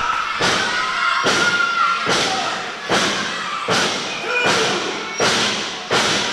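Heavy thumps at a steady beat, about eight of them, a little over one a second, each ringing on briefly in the hall.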